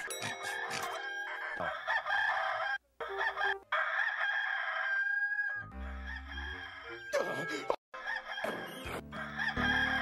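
Hollywood Edge stock sound effect of a rooster crowing ("Bird Rooster 2 Crow"). The crow is heard several times in a row, each one ending in a long held note, with abrupt cuts and brief silences between them.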